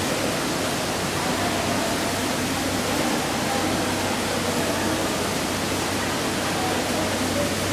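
Steady, even hiss of background noise with a low hum underneath, unchanging throughout; no handling clicks or knocks stand out.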